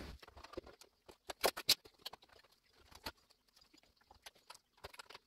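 Irregular small clicks, taps and scrapes of computer parts and cables being handled and fitted, with a few sharper clicks about a second and a half in.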